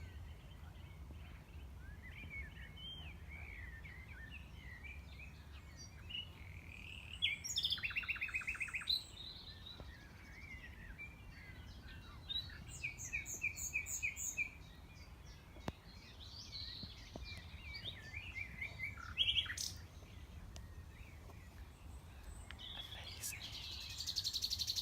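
Common nightingale singing in separate varied phrases: fast runs of repeated notes and chattering warbles, with short pauses between phrases.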